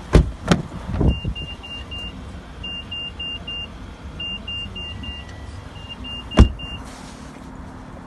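A Mitsubishi Outlander PHEV's rear door is opened with two sharp clicks. The car's electronic chime then beeps in quick, high-pitched groups of four, and the door shuts with one loud thump about six seconds in.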